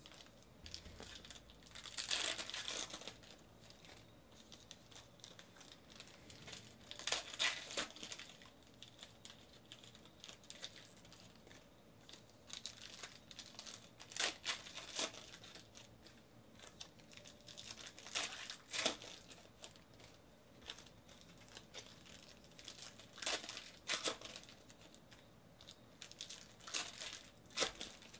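Foil wrappers of Panini Phoenix football card packs crinkling and tearing as the packs are ripped open and the cards pulled out, in short bursts about every five seconds.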